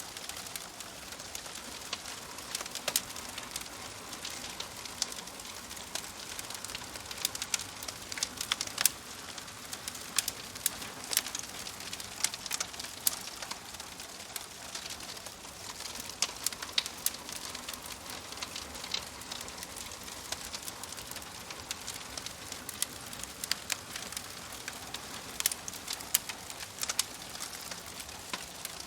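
Firewood burning in a fireplace, crackling: frequent irregular sharp pops and snaps over a steady soft hiss.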